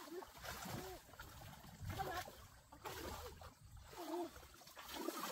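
Water splashing in short irregular bursts, with faint voices.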